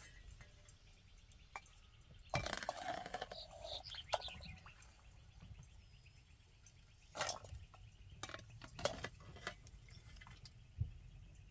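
Scattered sharp knocks and clinks, with a brief scraping rustle about two seconds in, over faint cricket chirping.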